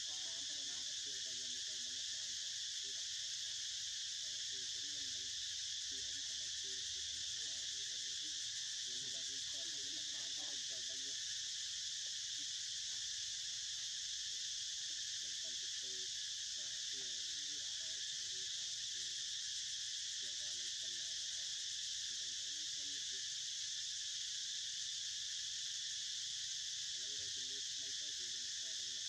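Steady, unbroken high-pitched drone of an insect chorus, with faint distant voices murmuring underneath at times.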